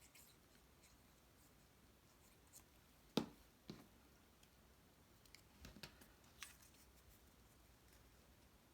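Near silence, broken by a few light taps and clicks of cardstock pieces being handled. The loudest comes about three seconds in, and a small cluster follows about two seconds later.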